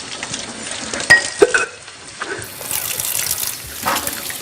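Kitchen cooking sounds: a steady hiss of running water or food in a hot pan, with two sharp clinks of cookware a little after a second in, the loudest sounds here.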